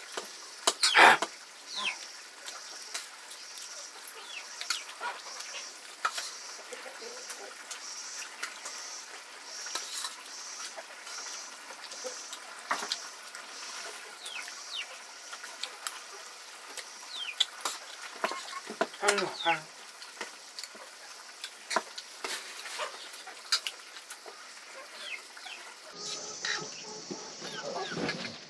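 Metal spoon clinking and scraping on a steel plate during eating, in scattered sharp clicks. Short descending bird chirps and clucks come through it.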